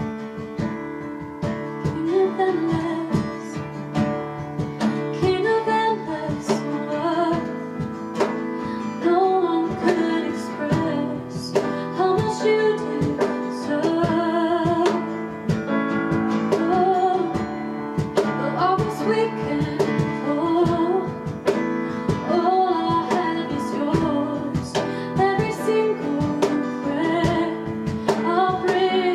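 A worship song sung by a solo voice over strummed acoustic guitar.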